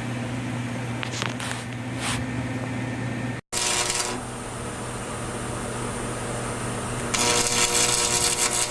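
Steady machine hum, with a few faint brief scrapes early on. The sound cuts out for an instant about a third of the way in. A louder hissing rush starts about 7 seconds in and runs on.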